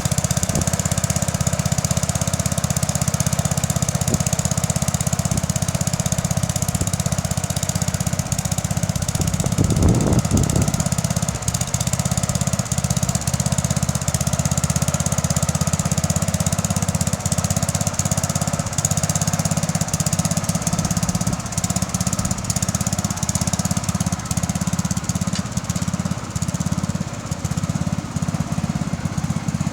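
Bolens 1050 garden tractor engine running steadily while pulling a plough, with a brief louder thump about ten seconds in.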